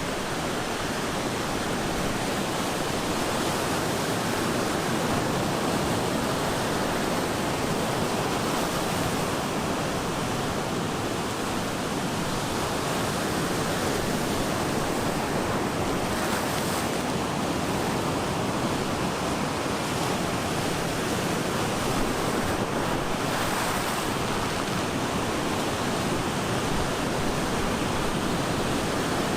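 Ocean surf breaking on the shore: a continuous, even wash of white water with no single crash standing out, swelling only slightly now and then.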